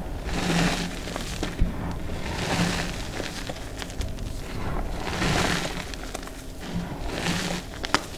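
Hands scooping and squeezing a heap of crumbled, dyed reformed gym chalk powder. A soft, dusty crunching swells about every two seconds, with a few sharper crunches.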